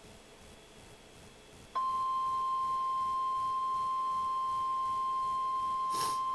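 NOAA Weather Radio 1050 Hz warning alarm tone: faint radio hiss, then a single loud, steady high tone that comes on suddenly about two seconds in, with a brief burst of static near the end.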